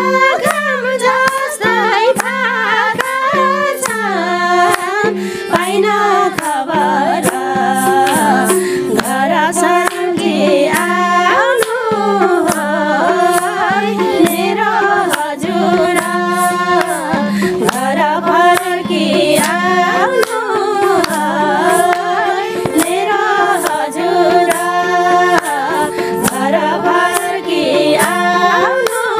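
Several women singing a Nepali folk song together to a harmonium, which holds a steady drone under the voices, with a rhythmic tapping beat.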